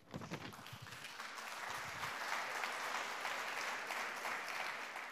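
Audience applauding, building up over the first two seconds and then holding steady.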